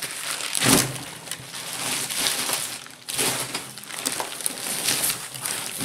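Bubble wrap and packing paper crinkling and rustling as a bubble-wrapped package is handled and lifted out of a cardboard box. Louder bursts come about a second in and again about three seconds in.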